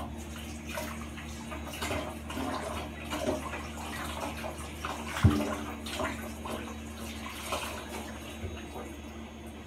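Water running from a kitchen tap and spattering as fresh herbs are rinsed under it, with a single sharp knock about five seconds in.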